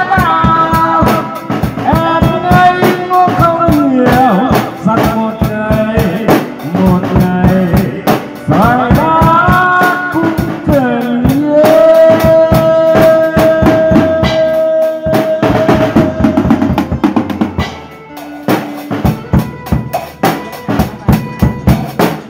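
Drum kit played live with a steady beat under an electric guitar melody of bending notes and one long held note. Near the end the melody stops and the drums play on alone.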